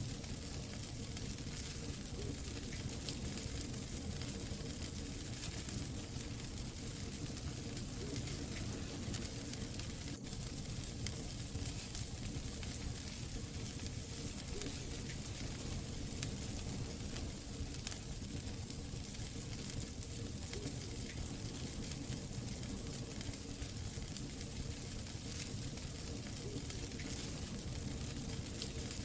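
Wood fire burning in a fireplace: a steady low rumble of flames under a constant hiss, with scattered small crackles and two sharper pops a little past halfway, under two seconds apart.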